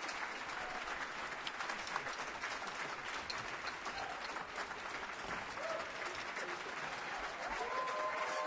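Theatre audience applauding steadily, with a few cheering voices rising over the clapping near the end.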